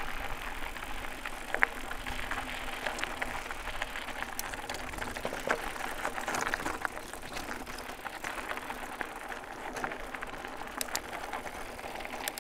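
A Haibike SDURO HardNine 1.5 e-mountain bike being ridden: steady tyre and riding noise with scattered clicks and rattles from the bike.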